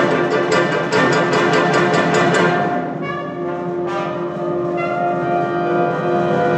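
Student wind band with brass playing a fast, evenly pulsed passage, then settling about two and a half seconds in into long sustained brass chords.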